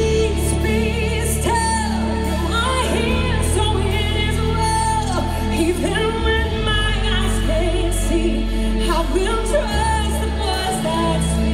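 Live worship band and singer performing a slow contemporary worship song through an arena sound system, heard from the audience. A sung melody runs over sustained low notes that shift every few seconds.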